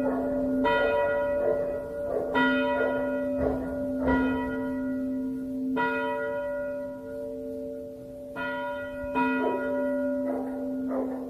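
A simulation of church bells: several bells ringing together. They are struck over and over, roughly every second and a half to two seconds, and each stroke leaves long overlapping ringing tones.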